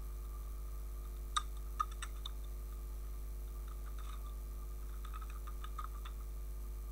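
Computer keyboard keys clicking in scattered runs of keystrokes, a few sharper single clicks among them, over a steady low electrical hum.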